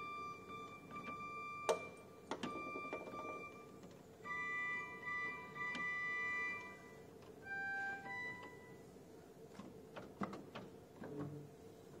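Old two-manual church organ played: a few held notes and chords, each a second or two long, some several notes together. The notes stop about nine seconds in, and a few clicks follow.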